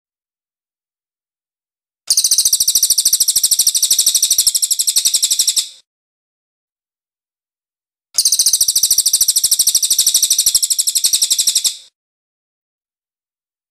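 Crested jay (cililin) calling: two runs of fast, high-pitched repeated notes, about ten a second, each lasting about three and a half seconds, with a clean silent gap between them.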